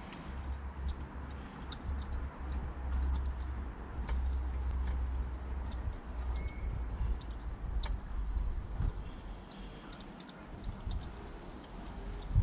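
Socket ratchet clicking in short, irregular runs as a spark plug is turned in the cylinder head of a BMW M30 straight-six, over a low rumble.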